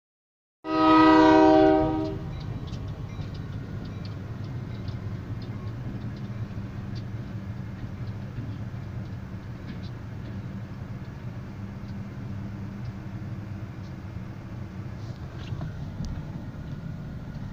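Locomotive air horn sounding one loud blast of about a second and a half, followed by a steady low rumble heard from inside a moving car.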